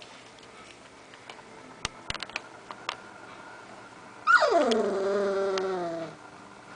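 One-month-old Briard puppy giving a single drawn-out cry about four seconds in that starts high, slides down and is held for nearly two seconds. A few light taps come before it.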